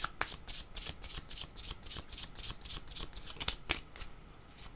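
A deck of divination cards being shuffled by hand: a quick, even run of soft card flicks, with a brief pause near the end.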